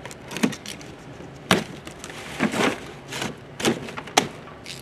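Cardboard box and packing being handled and pulled open: short scraping rustles with several sharp clicks and knocks.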